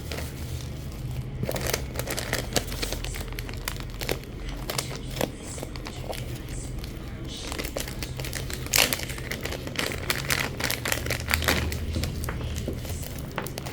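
Plastic packaging crinkling and rustling as it is handled, with irregular crackles and a sharper snap about nine seconds in.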